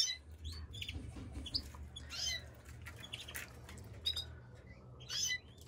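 Domestic canaries giving short, scattered chirps and calls, with a few sharp clicks and a low steady hum underneath.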